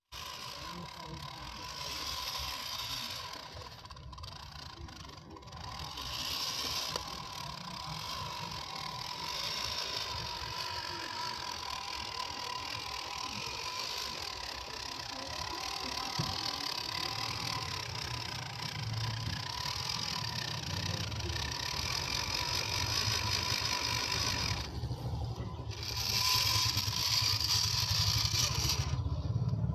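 1/10-scale RC Jeep Rubicon running: a steady electric motor and gear whine with rattling noise. The higher noise briefly drops away about four seconds in and again near the end.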